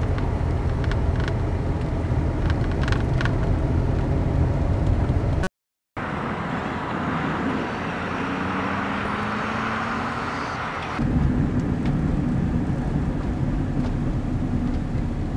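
Steady low rumble of a car driving on a road, cut off by a brief dropout about five seconds in. After it comes a hissier stretch with a slowly rising tone, and the low rumble returns near the end.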